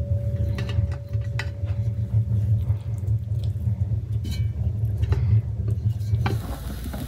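A steady low rumble with scattered light clinks and knocks of kitchenware over it. Near the end it gives way abruptly to an even, crackling hiss.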